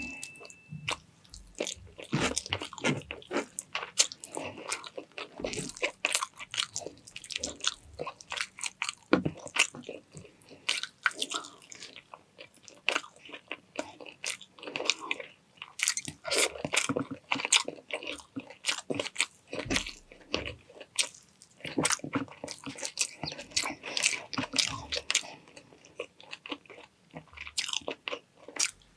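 Close-miked eating: a person biting and chewing a meal of chicken bistek and rice with crisp vegetable sides such as cucumber and atsara, a continuous irregular run of crunches, wet mouth smacks and chewing sounds.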